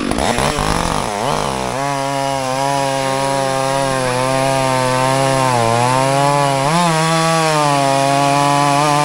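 Two gas chainsaws cold-started for a race: revving unevenly for the first couple of seconds, then held at full throttle as they cut through a log, the pitch sagging briefly under load a few times.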